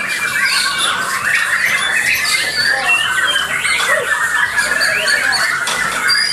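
Many caged songbirds singing at once, among them white-rumped shamas: a dense, unbroken tangle of overlapping whistles, chirps and trills.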